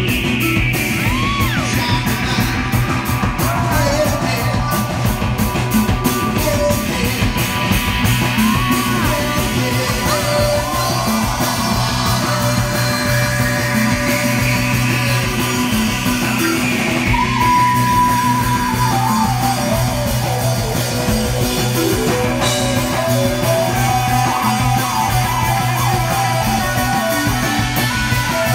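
Rock band playing live and loud: electric guitar and bass guitar over drums, with a held low bass note and sliding, wavering higher lines.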